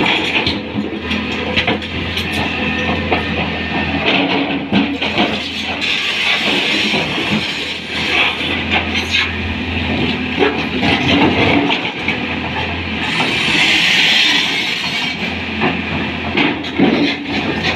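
Tata Hitachi 200 excavator working: the diesel engine runs steadily under irregular clanking and scraping knocks, with a hiss that swells for a couple of seconds near the end.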